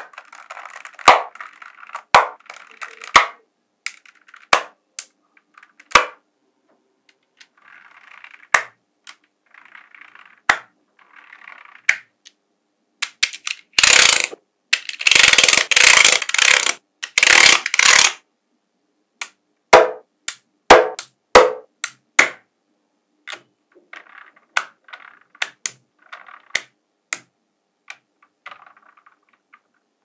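Small magnetic balls clicking sharply as they snap together one at a time. Midway, about four seconds of loud rattling clatter as many balls knock against each other, with faint rolling and scraping between the clicks.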